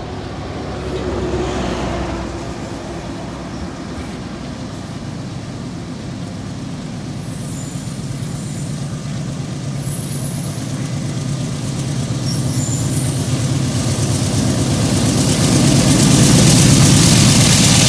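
Norfolk Southern diesel-electric freight locomotive approaching and passing underneath. Its engine drone grows steadily louder, and a hiss of wheels on rail joins it in the last couple of seconds as the locomotive comes beneath.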